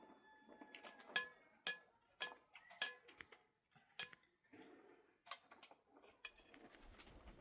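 Faint dishes clinking: about seven irregular sharp clinks, each with a brief ring.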